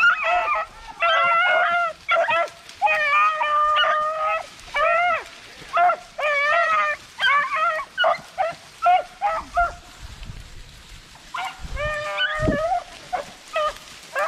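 A pack of rabbit hounds baying in short, repeated calls, several voices overlapping, as they run a rabbit. The baying thins out for a few seconds about eight seconds in, then picks up again.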